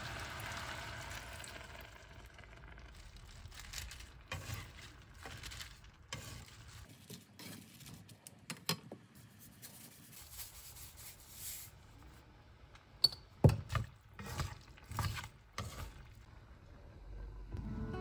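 Sliced cabbage and vegetables stir-fried in a nonstick pan: a faint sizzle at first, then wooden chopsticks tossing the vegetables with light scattered clicks and rustles, and a few sharper taps about three-quarters of the way through.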